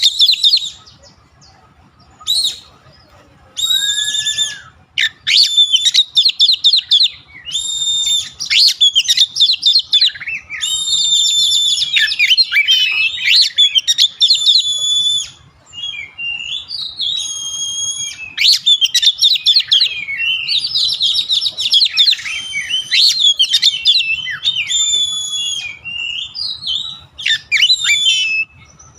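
Oriental magpie-robin (kacer) singing: a long, nearly unbroken run of rapid, varied whistled phrases and trills, after a brief pause about a second in.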